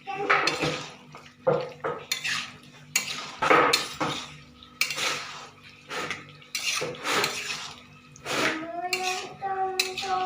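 A spoon scraping and knocking against a wok as a vegetable curry is stirred, in repeated, uneven strokes about one or two a second.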